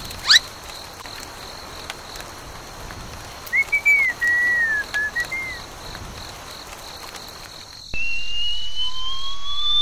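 Cartoon whistle sound effects over a hissy background with a faint steady high tone. There is a quick upward whistle right at the start and a short run of whistled, chirping notes in the middle. The loudest part is a long, slowly rising whistle over the last two seconds.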